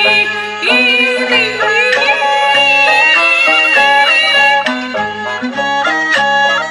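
Peking opera aria music, with the jinghu fiddle and the opera ensemble playing a stepping melodic line. A long held note falls in the middle.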